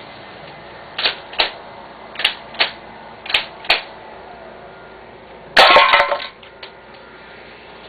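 Remington Tac-1 spring airsoft pump shotgun: six sharp clicks in three evenly spaced pairs as the gun is readied, then about five and a half seconds in it fires a three-BB buckshot shot, a loud snap with a short clattering rattle as the BBs strike the can.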